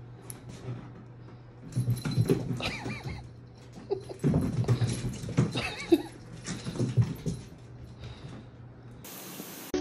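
Domestic cat vocalizing in drawn-out, wavering calls while chasing a laser-pointer dot, in two spells: about two seconds in, then again from about four to seven seconds in.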